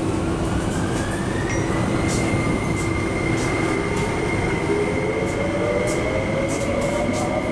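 Interior of an MTR IKK-train accelerating in a tunnel: the traction motors' whine climbs in pitch and then levels off, and a second, lower whine starts rising about halfway through. Wheel and tunnel rumble runs underneath throughout, with scattered faint clicks.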